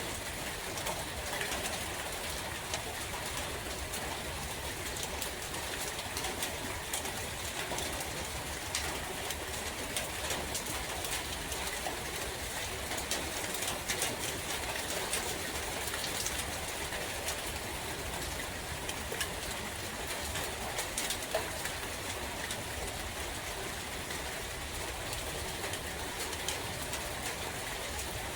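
Steady rain falling in a forest, with scattered drips pattering, a low rumble of wind, and birds calling.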